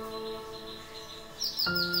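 Background instrumental music with long held notes. About a second and a half in, a quick run of high, falling bird chirps joins it.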